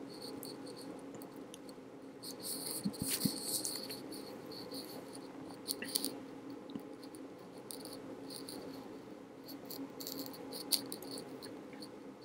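Quiet room tone: a steady low hum with faint, intermittent high-pitched chirping and a few soft clicks.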